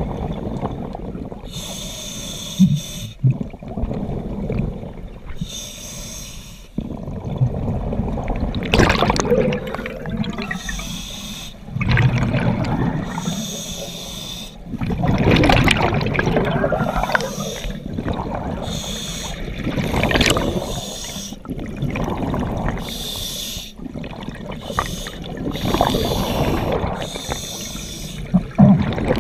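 Scuba diver breathing underwater through a regulator: short hissing inhalations alternate with longer, louder bubbling exhalations, repeating every few seconds.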